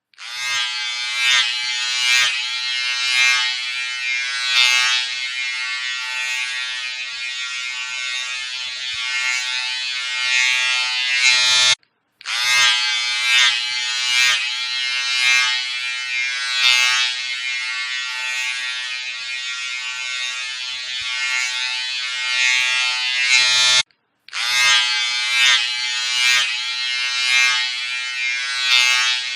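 Electric hair clipper running with a steady buzz and a hiss that swells and fades every second or so as it works. The sound breaks off abruptly for a fraction of a second twice, about a third and two thirds of the way through.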